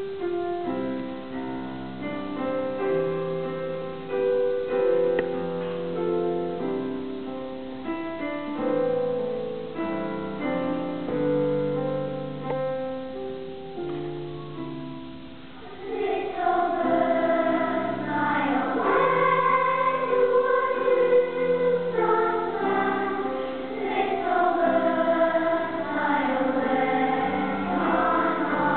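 Choir singing a slow, hymn-like piece. It opens with plain held chords that change every second or so; about halfway in, louder voices with a wavering pitch take over.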